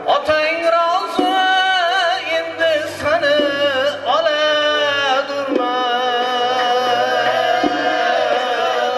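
Uzbek o'lan folk song: a high solo voice sings long, ornamented, wavering notes over a steady accompanying tone, with a few sharp beats.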